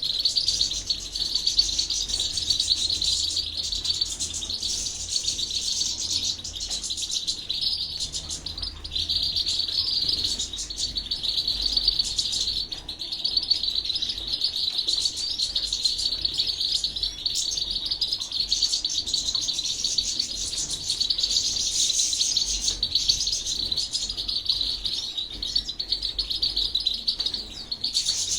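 Goldfinch × canary hybrid singing a long, rapid, high twittering song of trills, with only brief pauses.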